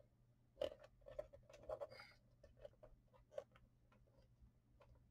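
Faint, scattered light ticks and scrapes of a small piece of wallpaper being handled and its folds pressed down with a folding tool, with a slightly louder tick about half a second in and another near three and a half seconds in.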